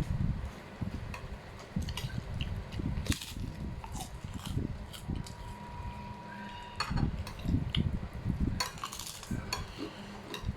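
A person eating: chewing and mouth sounds in uneven pulses, with cutlery clinking and scraping on a plate now and then.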